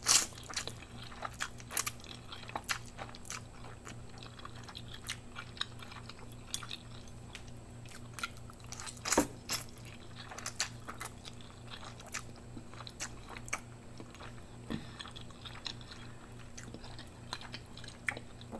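Eating Indomie Mi Goreng instant fried noodles: wet chewing, with many sharp mouth clicks and smacks and a louder one about nine seconds in.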